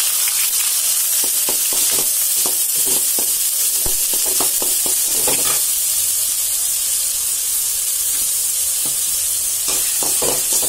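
Chopped onions sizzling steadily in hot oil in a kadai, while a spatula stirs and scrapes them in irregular strokes, with a run of strokes near the end.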